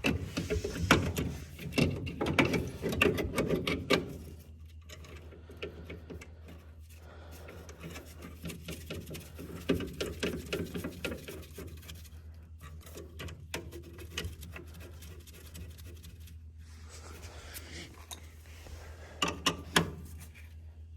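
Hand tools and metal burner parts clicking, knocking and scraping while an oil burner is worked on and a pump pressure gauge is fitted, busiest in the first few seconds, with a steady low hum underneath.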